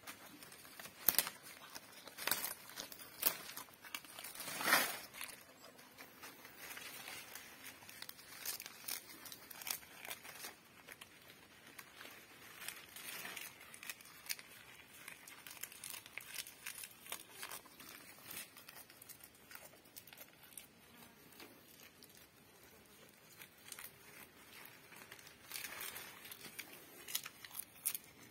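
A goat feeding on fresh leafy branches: irregular rustling, crackling and tearing of leaves as they are pulled and chewed, with a few louder sharp crackles in the first five seconds.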